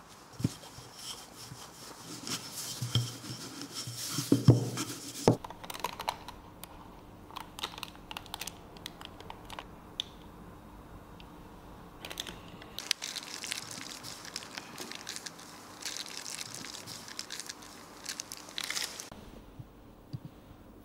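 Close-up hand-work sounds of making mochi: soft dough being pressed and patted flat on a silicone mat, with a few dull thumps about four to five seconds in, then the crinkling and rustling of a plastic piping bag being filled with chocolate sauce and squeezed. A faint steady hum runs underneath from about five seconds in.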